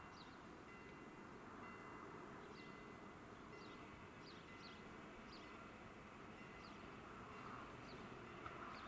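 Faint outdoor ambience with a bird giving a short, high, falling chirp over and over, at irregular intervals of about a second.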